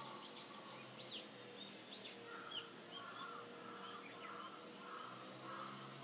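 Songbirds chirping faintly: quick arched chirps through the first half, then a rougher call repeated every half second or so from about two seconds in, over a faint steady low hum.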